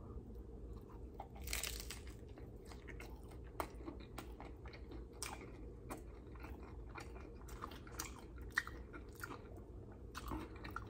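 Tortilla chips from pulled pork nachos being bitten and chewed: irregular crisp crunches, with a few sharper cracks now and then.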